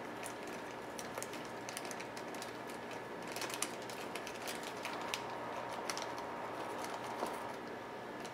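Scattered light clicks and rustling from small parts being handled on a workbench, busiest about three to four seconds in, over a faint steady hum.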